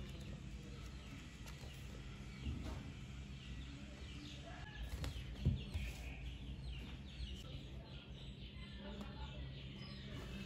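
Birds chirping in the background over a steady low hum, with a couple of soft knocks from a paperback manga being handled and set down on a desk.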